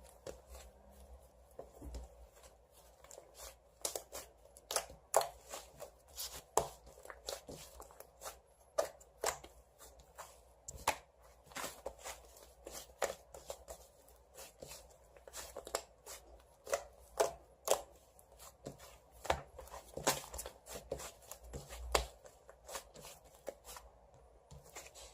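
Irregular short sharp taps or clicks, one to three a second, in a small room.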